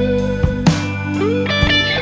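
Soloking MS-1 Custom 24 electric guitar with humbucking pickups, played through an amp: sustained picked notes, with a string bend gliding up in pitch about a second and a half in.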